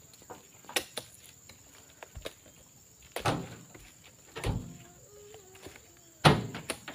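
Several sharp knocks or thuds at uneven intervals, the loudest two about three and six seconds in, over a steady high-pitched insect drone.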